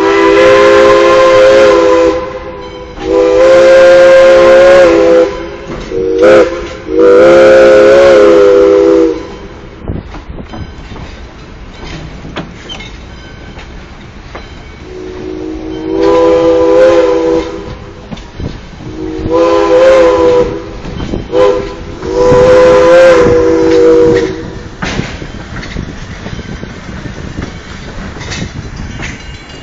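Steam locomotive's chime whistle blowing the long, long, short, long grade-crossing signal twice, each blast a chord of several notes. This is heard from an open coach window, with the train's wheels running over the rails between the blasts.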